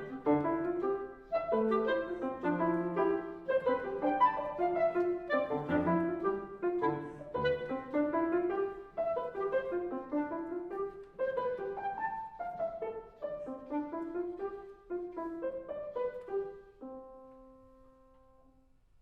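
Clarinet and piano playing a fast classical passage of many short, quick notes, then settling about 17 seconds in on a single held note that fades away.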